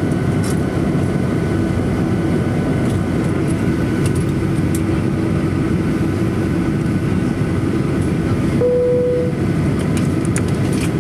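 Cabin noise inside a Boeing 737-800 taxiing slowly to the gate: a steady rumble with a steady hum from the CFM56-7B engines at idle. A brief single tone sounds about three-quarters of the way through.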